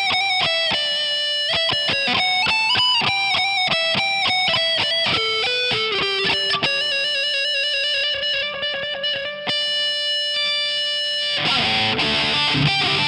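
Ibanez RC720 Premium electric guitar with Core-Tone humbuckers, played through an amp: a clean picked single-note melody with held notes. About eleven seconds in it switches abruptly to a distorted sound with low, repeated riffing.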